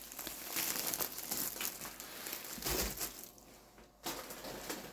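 Plastic food packaging crinkling and rustling as it is handled, in irregular bursts with a short pause near the end.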